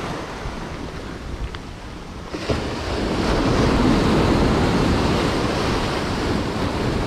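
Ocean surf breaking and washing over a rocky shoreline: a wave surges in about two and a half seconds in, loudest a second or two later, then slowly eases off.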